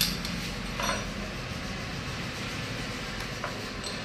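Metal clinks and clicks of a spanner and bolts on a TVS Victor motorcycle engine's cylinder head cover as it is unbolted: one sharp clink with a short ring about a second in, and a few lighter clicks later, over steady background noise.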